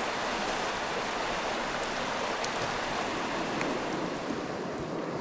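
Fast, deep river water rushing steadily over boulders and rocks.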